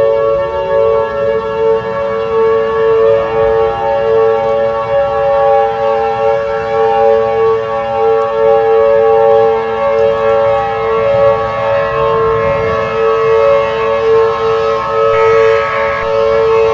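Civil defense siren sounding a steady, loud tone, with a second pitch winding up in the first couple of seconds.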